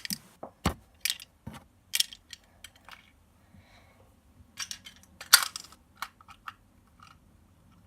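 Small plastic toy pieces being picked up and set down, making scattered sharp clicks and clatters, with a burst in the first couple of seconds and another around five seconds in.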